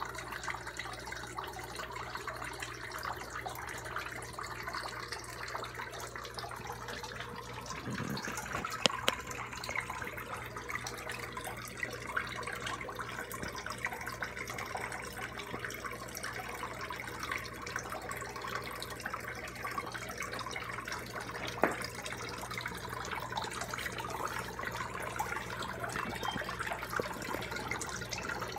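Steady splashing trickle of water falling from a hang-on-back aquarium filter's outflow into a shallow pool, over a low steady hum. Two sharp clicks stand out, about a third of the way in and about three quarters of the way in.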